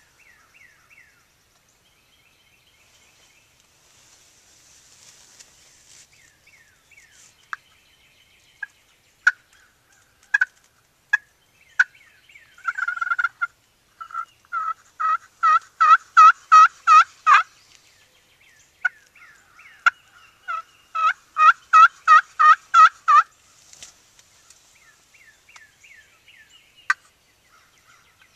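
Turkey yelping: two loud runs of about ten evenly spaced yelps, a few seconds apart, after scattered single clucks and a short rapid burst of notes.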